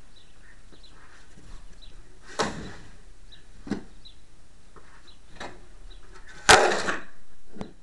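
Snow shovel scraping over the ground and knocking against a tractor's metal front-loader bucket as snow is tossed in: several separate scrapes and knocks, the loudest a sharp knock about six and a half seconds in, followed by about a second of scraping that stops abruptly.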